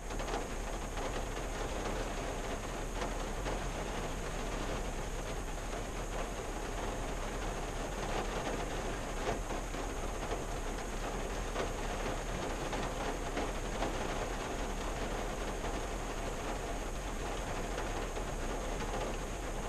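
Rain falling on a 1974 Valiant, heard from inside the car's cabin: a steady rush of rain with many separate drop taps scattered through it.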